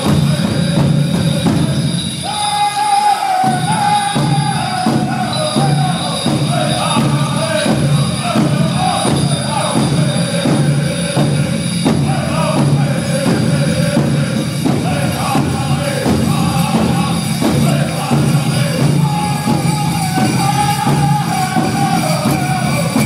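Powwow drum group singing in unison over a steady drumbeat, about two beats a second. About two seconds in, the drum drops out briefly while a singer holds a long note, then the beat comes back in.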